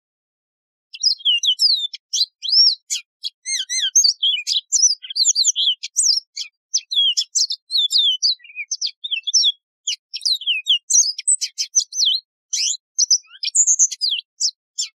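Yellow-fronted canary singing a fast, varied song of quick, high sweeping notes and trills, starting about a second in.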